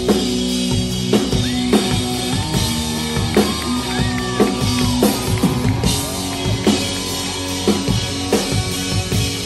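Live rock band playing an instrumental passage with no vocals: a drum kit keeping a steady beat of kick and snare hits under held electric guitar notes.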